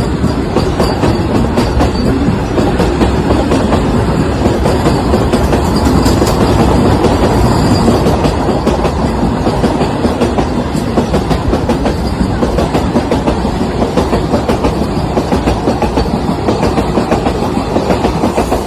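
Vande Bharat Express electric train running on the track. A steady rumble of wheels and motors carries a fast, regular clickety-clack of wheels over rail joints, which grows more distinct in the second half.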